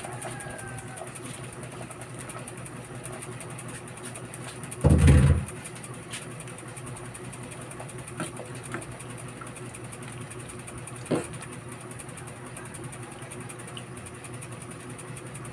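Steady low machine hum, with one loud thump about five seconds in and a few light clinks of a ladle stirring in an aluminium pot.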